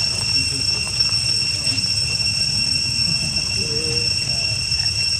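Steady outdoor background noise: a constant high-pitched drone over a low rumble, with no distinct monkey calls.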